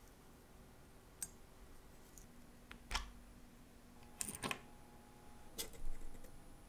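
Light, scattered clicks and taps of small metal watch parts and tweezers on a watchmaker's bench while the mainspring barrel is handled, about half a dozen separate ticks, with the loudest near the middle and toward the end.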